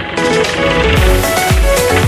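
Background electronic dance music with a steady beat of deep bass-drum hits that comes in about half a second in.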